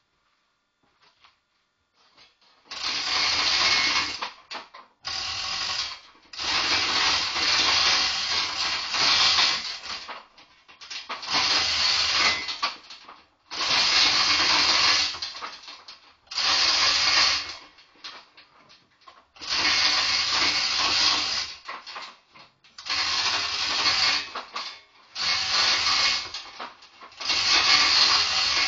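Hand-pulled chain hoist lifting an engine out of the engine bay: chain clattering through the hoist in about ten pulls of one to three seconds each, with short pauses between them.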